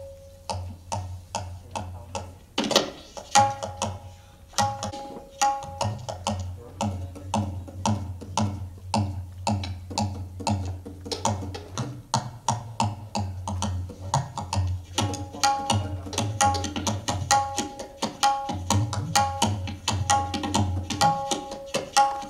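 Tabla being played, a quick, continuous run of sharp strokes with the tuned right-hand drum ringing at a steady pitch in stretches.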